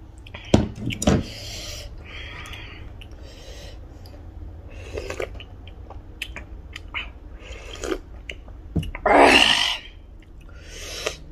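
Close-up eating sounds: two sharp clacks as a plastic plate is set down at the start, then soft mouth noises and small clicks while chicken soup is sipped from a bowl, with one loud long slurp about nine seconds in.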